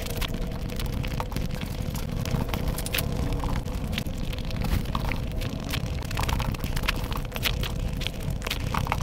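Close-miked chewing and mouth sounds of someone eating mouthfuls of biryani rice and egg curry by hand: a continuous run of irregular smacking clicks and squelches.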